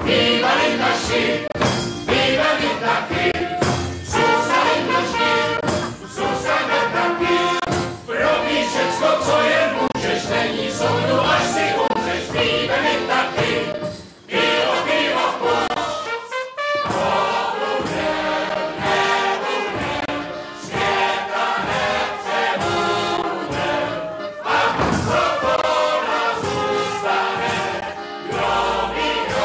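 A folk band of accordion, clarinet, trumpet and double bass playing a lively dance tune, with a group of voices singing along. The music breaks off briefly about halfway through, then carries on.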